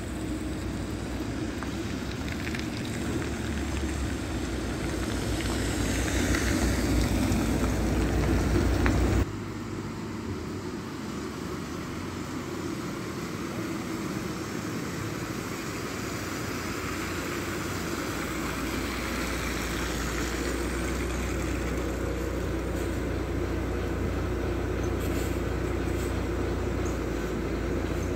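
Articulated city bus approaching along a slushy road, engine and tyre noise growing louder as it nears. The sound cuts off abruptly about nine seconds in, and another articulated bus is heard approaching on a wet street, its deep engine hum building near the end as it draws up close alongside.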